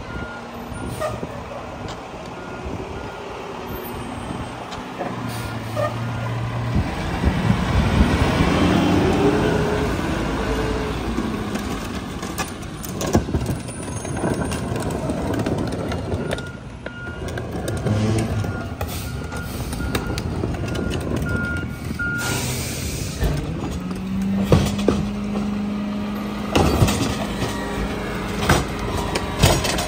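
Mack Granite rear-loader garbage truck backing up, its engine running and swelling in pitch, with its reversing alarm beeping briefly at the start and again for several seconds in the middle. Near the end the engine holds a steady raised pitch while sharp knocks and clanks come from carts being tipped into the hopper.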